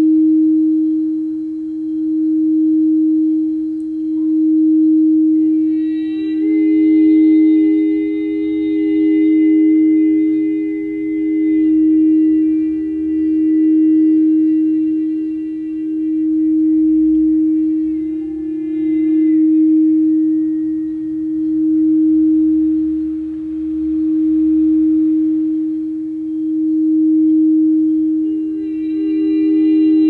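Frosted quartz crystal singing bowl rimmed with a mallet, holding one steady low tone that swells and fades about every two seconds. A second, higher ringing tone with bright overtones joins about five seconds in, drops away around eighteen seconds, and comes back near the end.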